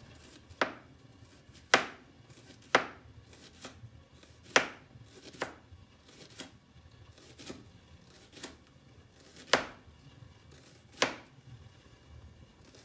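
Kitchen knife slicing a red onion into rings on a plastic cutting board: a sharp knock of the blade on the board about once a second, unevenly spaced.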